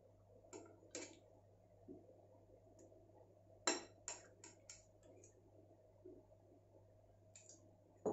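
A kitchen utensil clinking and tapping against a mixing bowl while mango pulp is stirred into whipped cream. The taps are light and irregular, with the loudest a little past three and a half seconds in and a quick run of taps just after.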